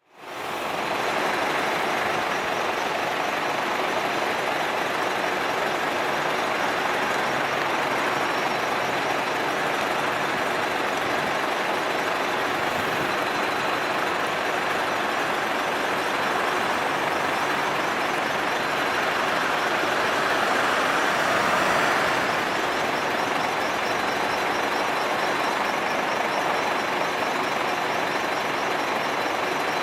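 A large motor vehicle running steadily amid street noise, with no siren sounding; it swells a little about two-thirds of the way through.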